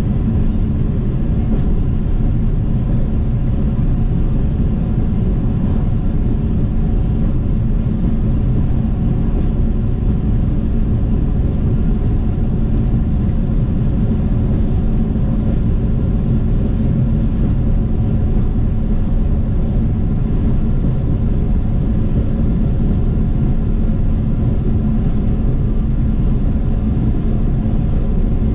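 Steady road noise of a car driving at speed, heard from inside the vehicle: a low, unbroken rumble of tyres and engine with a faint steady hum.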